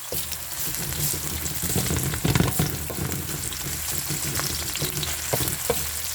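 Chopped garlic, ginger and onions sizzling in hot vegetable oil in a cooking pot while being stirred, with a utensil scraping and knocking against the pot, the sharpest knock about two and a half seconds in.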